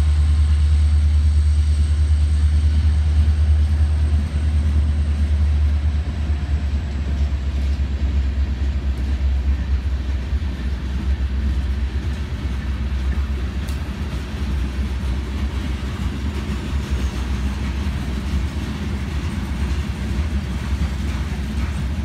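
Freight cars of a Norfolk Southern manifest train rolling past at close range, a steady loud rumble of wheels on rail. A deep low drone is strongest for the first several seconds and then eases as the locomotive draws away.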